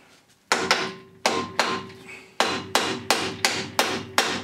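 Hand hammer striking metal on an old Seagull outboard motor, knocking at stuck remnants. About ten blows come roughly a third of a second apart in two runs, with a short pause near the middle, and each blow leaves a brief metallic ring.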